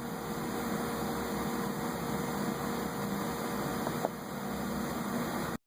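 Steady background hum and hiss, with a faint click about four seconds in; the sound cuts out abruptly just before the end.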